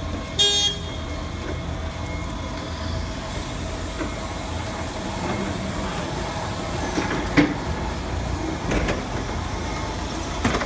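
Battery-electric stand-up forklift running: a steady hum from its motors, a short loud beep about half a second in, and a high hiss from about three seconds in. A few sharp clacks, the loudest about seven seconds in.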